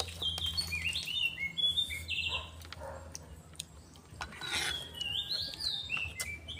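Birds chirping and singing: a run of short whistled notes that rise and fall, one of them buzzy, with a few faint clicks among them.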